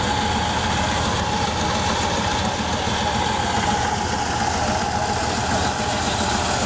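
Massey Ferguson 135 tractor's diesel engine running steadily while it drives a small thresher, with a steady high hum from the machinery over the engine's rumble.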